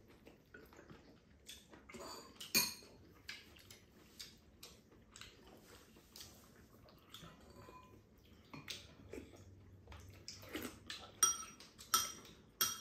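Spoons clinking and scraping against ceramic bowls as rice is scooped and eaten: a run of short clicks, some with a brief ring, with a sharper clink about two and a half seconds in and several more near the end.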